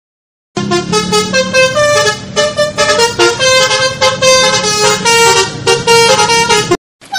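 A multi-tone horn plays a quick tune of changing notes over a steady low drone. It starts about half a second in and cuts off sharply near the end.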